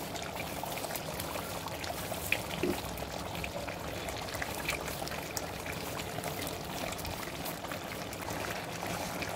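Chicken curry gravy simmering in a pot on the stove, a steady bubbling hiss, with faint scattered crackles as crisp fried onions are crushed by hand and dropped into it.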